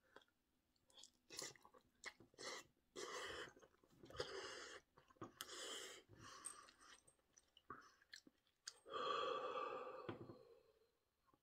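A person slurping and chewing a forkful of hot instant noodles, with short noisy breaths through the mouth, and a longer breath out about nine seconds in.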